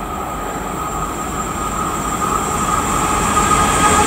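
Approaching freight train hauled by a Class 186 electric locomotive, a steady rumble of wheels on rail growing louder as it nears. A thin wheel squeal on the curve builds up in the second half.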